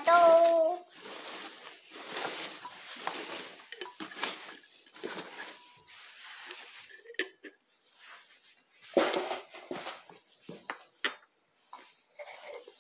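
Small porcelain jugs and lidded pots and a glass bowl clinking and knocking together as a toddler handles them, in irregular taps with a few short ringing chinks. The loudest clatter comes about nine seconds in.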